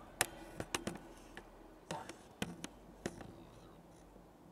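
A quick run of sharp taps and knocks on metal railings, about nine in the first three seconds, some followed by a short ring.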